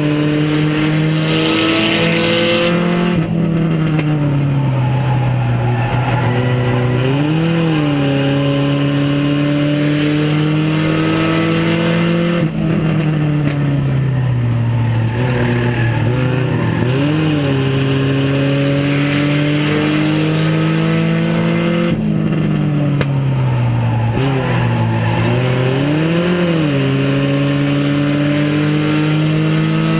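Mini stock race car's four-cylinder engine at racing speed, heard from inside the cabin. It is held at high revs down the straights. Roughly every ten seconds the pitch drops sharply as the driver lifts for the turns, gives a short rise and fall, then climbs again out of the corner.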